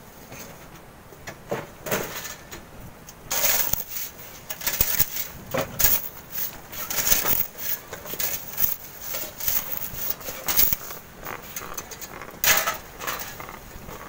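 Shovels scraping and scooping sand into steel wheelbarrows in quick, irregular strokes, one or two a second, with a longer gritty scrape about three seconds in and another near the end.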